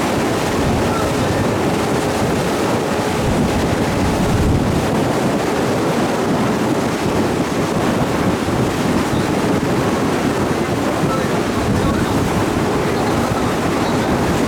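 Steady rush of wind buffeting the microphone and water washing past a moving boat.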